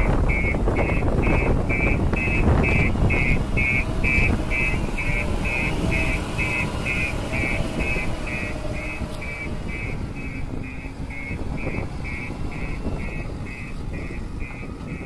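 Backhoe loader's reversing alarm beeping steadily, about twice a second, over its diesel engine running. The engine noise is loudest in the first half and eases off toward the end.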